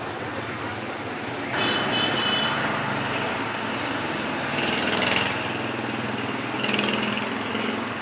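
Street traffic noise with a small engine running close by, jumping louder about a second and a half in and swelling twice more.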